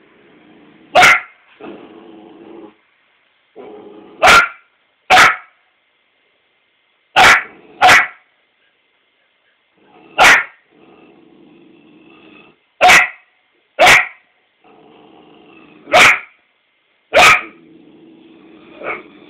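Four-month-old Australian Shepherd puppy barking at her own reflection in a mirror: about ten short, loud barks, one every second or few, with low growling between them.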